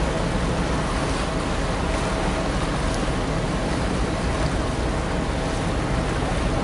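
Gusty wind buffeting the camera microphone: a loud, steady rush with heavy low rumble, with a faint steady hum underneath.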